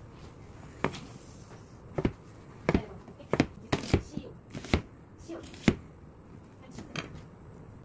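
Kitchen knife cutting zucchini and then onion on a plastic cutting board: about ten sharp chops at an uneven pace, each blade strike knocking on the board.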